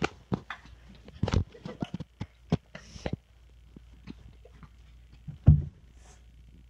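A quick run of towel slaps and knocks against a wall and body during roughhousing, then one heavy thud about five and a half seconds in as a boy drops onto a towel on the carpeted floor.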